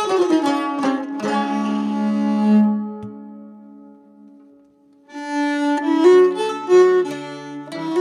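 Background music played on string instruments, plucked and bowed. A phrase dies away about three seconds in, then a new phrase starts about five seconds in.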